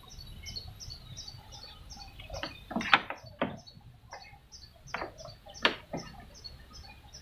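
Scattered light clicks and knocks from rubber vacuum hoses and hand tools being handled in an engine bay, the sharpest about three seconds in and again near six seconds. Under them runs a steady high chirping, about three to four short notes a second.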